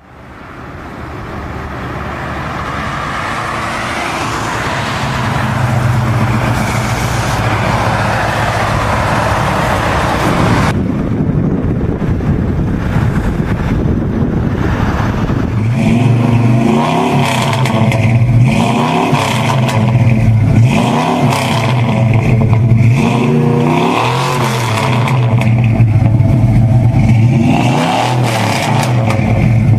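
For the first stretch, a car engine runs hard, its pitch climbing early on. After an abrupt cut, a Plymouth GTX's V8 is revved over and over, the note rising and falling with each blip of the throttle.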